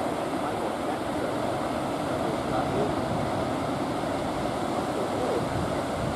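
Ocean surf breaking and washing in steadily, with some wind on the microphone.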